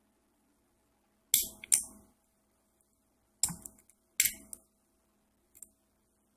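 Sharp metallic clicks of a lock pick and tension wrench working a custom-pinned pin-tumbler padlock: two quick pairs of clicks, then a fainter click near the end.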